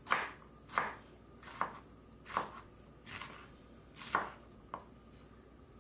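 Chef's knife slicing a jalapeño pepper into rings on a cutting board: about seven slow, evenly spaced cuts, each ending in a knock of the blade on the board. The cutting stops near the end.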